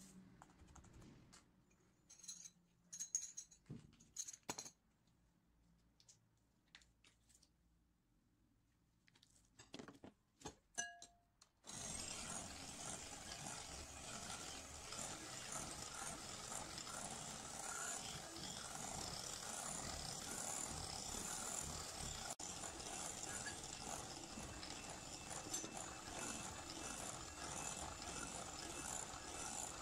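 A few light clicks and knocks of ingredients and utensils at a glass bowl, then about twelve seconds in an electric hand mixer switches on and runs steadily, its twin beaters whirring through eggs in the bowl with a high motor whine.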